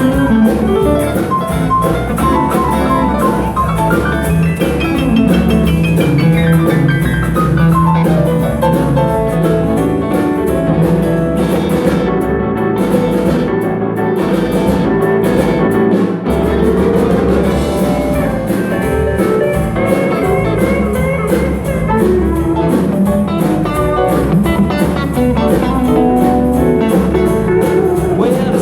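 Live band playing an instrumental passage with guitar and drum kit, without singing.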